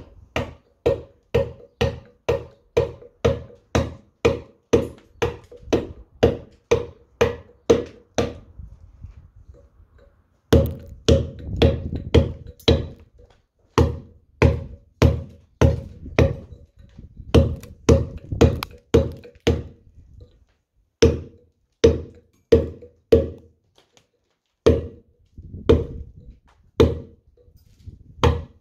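Round-headed mallet striking a chisel that cuts letters into stone: sharp blows about two a second, each with a short ring, in runs broken by three brief pauses.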